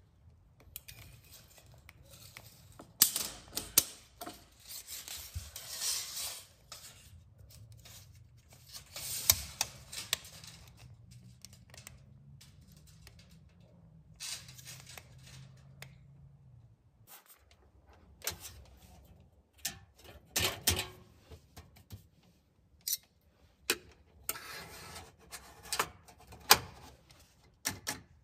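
Steel tape measure and a small metal clip being handled: irregular sharp metallic clicks and short rattles with soft rubbing between them, the loudest clicks bunched a few seconds in, around nine seconds, and through the last several seconds.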